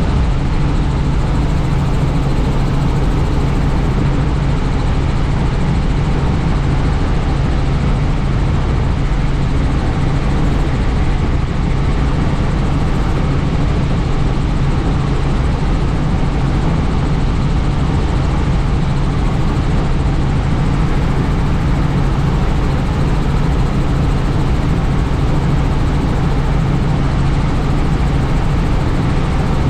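Helicopter in flight, heard on board: the engine and rotors make a loud, steady drone with a strong low hum and an even rush of noise over it.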